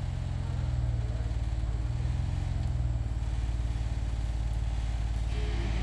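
Jeep Wrangler's engine running steadily at low revs as the four-wheel-drive crawls slowly over a muddy rut, a deep rumble.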